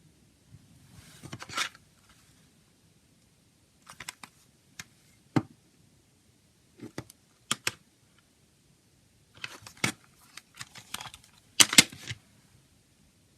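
Plastic CD jewel case being handled and opened: scattered clicks, snaps and short rustles, with the sharpest pair of clicks near the end.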